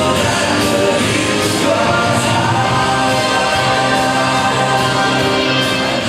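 Music with singing: long held sung notes over a steady band backing.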